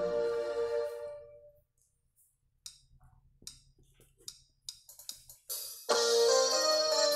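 Karaoke backing track of a dangdut song: a musical phrase fades out over the first second and a half, then a near-silent gap with a few faint ticks, and keyboard-led music comes back in sharply about six seconds in.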